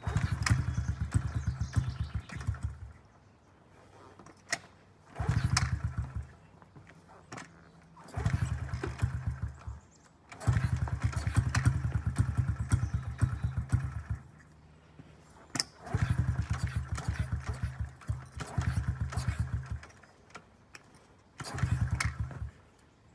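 Honda CRF50F pit bike's small single-cylinder four-stroke engine being started repeatedly after two years unused: six bursts of a few seconds each of rapid engine pulses that sputter and die away, with sharp clicks between attempts.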